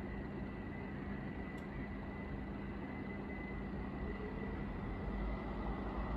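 Steady trackside background noise beside an electrified railway line, with a faint steady high tone and a low hum; a low rumble grows louder near the end.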